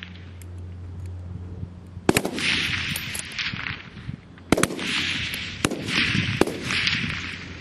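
Centrefire rifles firing a rapid-fire string from several shooters along the firing line: sharp, unevenly spaced shots, the loudest four about 2, 4.5, 5.7 and 6.4 seconds in, each followed by a rolling echo down the range, with fainter shots from further along the line between them.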